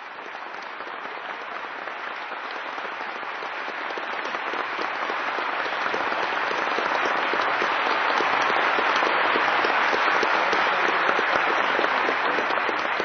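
A large audience applauding, the dense clapping swelling steadily louder and beginning to die away near the end.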